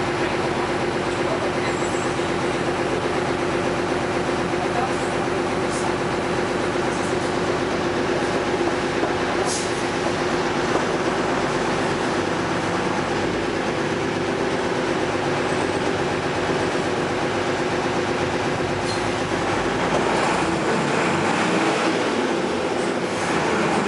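Steady running noise of a moving vehicle, with a constant hum and a few faint clicks.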